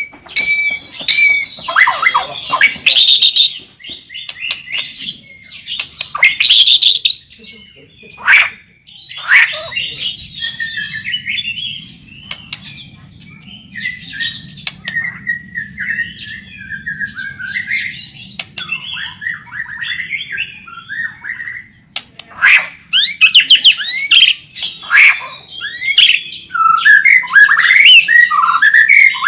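White-rumped shama (murai batu) singing a long, varied song of whistled phrases and quick rapid notes. It is loud at first, softer in the middle stretch, and loud again near the end.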